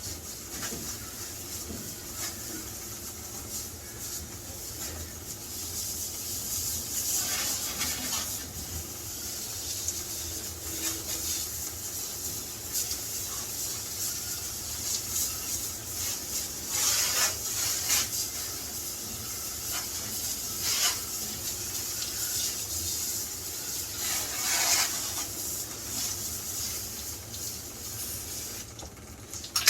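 Steady hiss of water spraying from a garden hose, with louder irregular surges, cutting off abruptly near the end.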